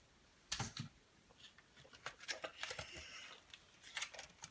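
Handling of the promo box's card and plastic packaging: a sharp knock about half a second in, then light clicks and crinkling.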